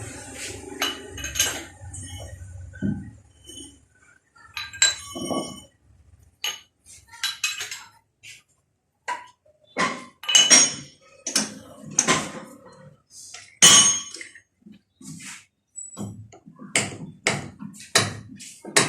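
Metal tools and parts clinking and knocking together as they are handled, a string of separate sharp strikes. A low machine hum under the first few seconds stops about four seconds in.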